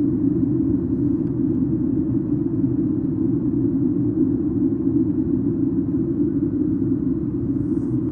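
Steady cabin noise inside a Boeing 737-8 MAX in flight: an even low rumble from its CFM LEAP-1B engines and the airflow, unchanging throughout.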